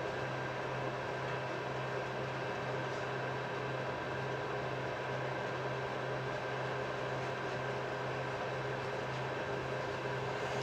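3D printers running mid-print: a steady whir and hum of cooling fans and motors, with a few constant high tones over a low hum.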